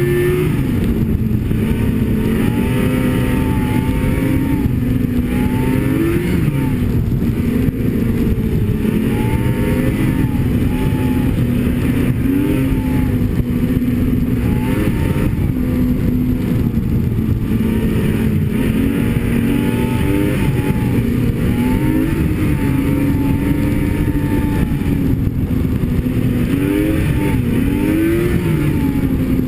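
Snowmobile engine running under way, its pitch rising and falling again and again as the throttle is worked, over a steady rush of track and wind noise.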